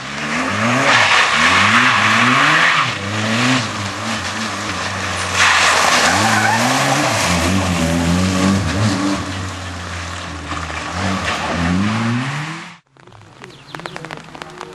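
Opel Corsa rally car's engine revving hard, its pitch climbing and dropping again and again through gear changes, with two long stretches of loud tyre and surface noise over it. The sound cuts off abruptly near the end, at an edit, and a quieter engine sound follows.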